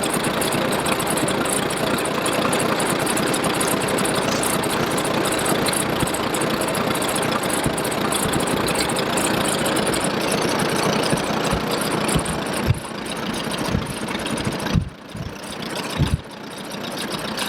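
Tractor engine running steadily. The sound dips briefly a few times near the end, with low thumps.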